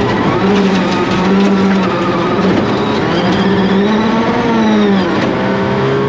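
Rally car engine running at high revs under hard throttle, its pitch held, rising a little about four seconds in and dropping off near five seconds.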